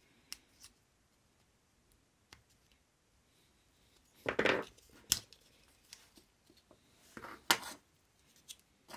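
Small clicks and scrapes of a plastic car hazard light switch housing being prised apart at its clips with a knife blade, with a short scrape and a sharp click about halfway through and another scrape near the end.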